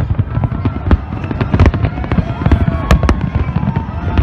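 Aerial fireworks bursting in rapid, overlapping succession: many sharp bangs over continuous rumbling booms.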